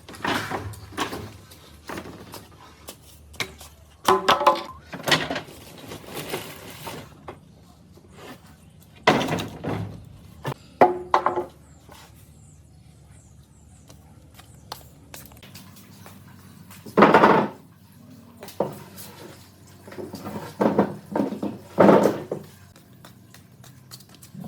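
Irregular knocks, thunks and clatter of wooden pieces being handled and set down, some with a brief ring, loudest about four, nine, seventeen and twenty-two seconds in.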